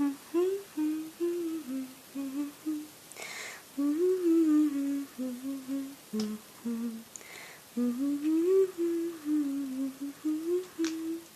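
A female voice humming a wandering tune in short phrases, with brief intakes of breath between them.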